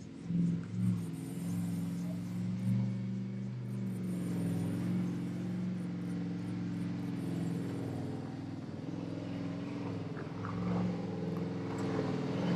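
Nissan Patrol Y62's 5.6-litre petrol V8 running at low, steady revs under load on a slow 4WD hill climb: a low, even drone with small shifts in pitch.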